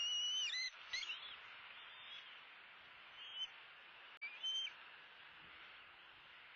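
Bald eagle eaglets calling: thin, high whistled calls, the first about half a second long and ending in a downward slide, then shorter ones about a second, three and four and a half seconds in, over a steady hiss.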